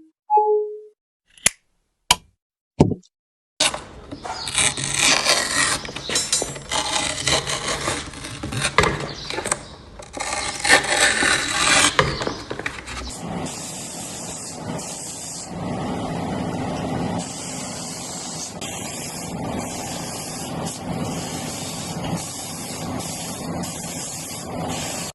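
Workshop tool and machine noises: a few sharp clicks, then scraping and a machine running in a steady, noisy way through the second half.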